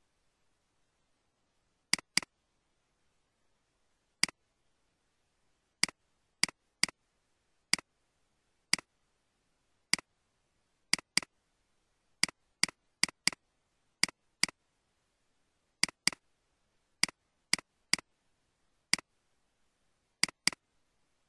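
A computer mouse clicking, irregularly spaced over about twenty seconds. Some clicks are single and some come in quick pairs as double-clicks that open folders.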